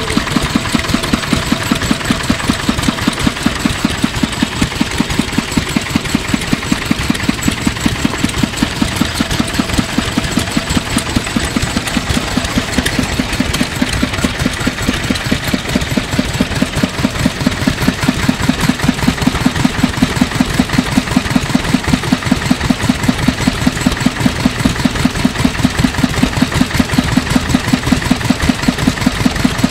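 Kubota Universe KND5 diesel engine of about 1958, mounted on a Kubota KF rotary tiller, running steadily with an even, regular beat of firing strokes.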